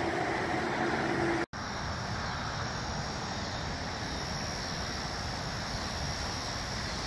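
Steady background traffic noise with an engine drone in it. It drops out sharply about one and a half seconds in, then carries on as a softer, even hiss.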